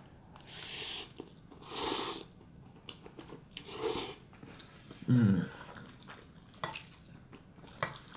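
A man eating instant noodles with a fork: slurping and chewing, with three short breathy slurps in the first four seconds and a short falling 'mm' about five seconds in. A few light clicks follow near the end.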